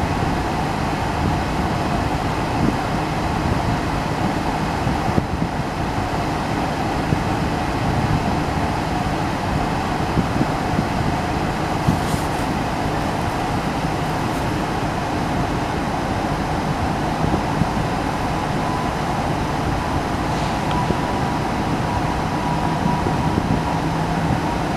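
Steady vehicle rumble and hiss with a low hum, and a faint thin high tone in the last few seconds.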